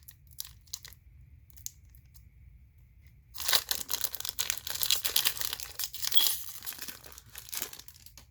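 Foil Pokémon booster pack wrapper being torn open and crinkled: a few faint clicks, then about three and a half seconds in a burst of tearing and crackling lasting about four seconds.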